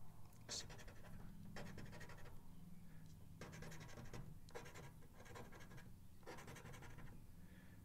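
Coin scraping the scratch-off coating off a paper lottery ticket in a string of quiet, short, irregular strokes.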